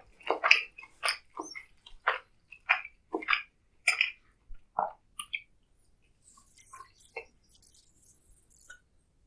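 Close-miked chewing, a quick run of wet, smacking bites and chews that thins out about five seconds in to a few faint mouth clicks.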